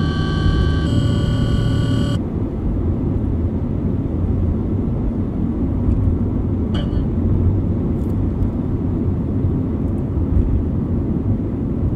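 A radio giving out broadcast interference. A chord of steady electronic tones shifts about a second in and cuts off suddenly after about two seconds. Then comes dense, low static with a few faint clicks.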